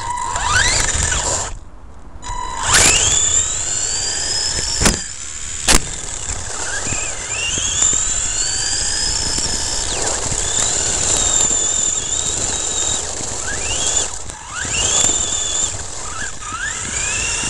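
Electric motor of a radio-controlled short-course truck whining up in pitch again and again with each burst of throttle, over the rumble of its tyres on gravel and paving. Two sharp knocks about five and six seconds in.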